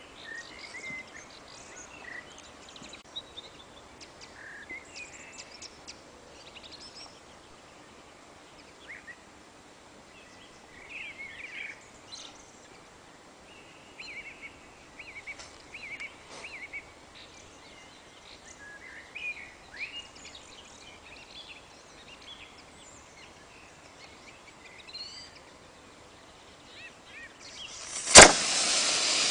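Small model rocket motor igniting on its launcher near the end: a sharp pop, then a loud steady hiss of the motor burning. Birds chirp faintly beforehand.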